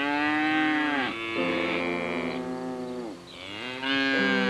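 Cow mooing: two long, drawn-out moos, one at the start and another about three seconds in, each falling in pitch at the end. Steady music notes sound between and after the moos.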